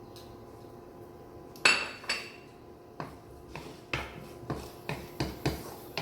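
A cooking utensil knocking against a frying pan while garlic and onion are stirred in oil. One loud clack comes about one and a half seconds in, then repeated clacks about twice a second.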